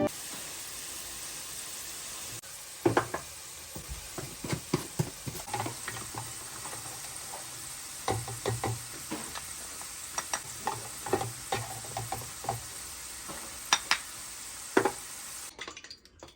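Food sizzling in a frying pan, with a utensil clicking and scraping against the pan at irregular intervals. The sizzle cuts off suddenly near the end.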